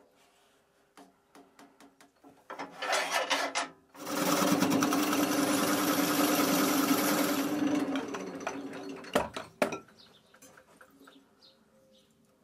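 Wood lathe spinning an off-centre oak blank while a turning tool cuts into the face: a brief cut, then about four seconds of steady cutting noise over the lathe's hum, fading away. Two sharp knocks follow.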